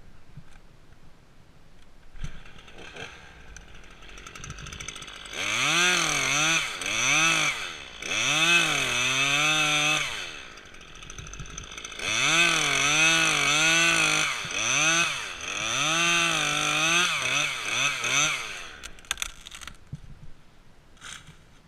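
Two-stroke chainsaw revved in two long spells of about five and six seconds, its pitch rising and falling repeatedly with the throttle, and dropping back to a low idle between and after.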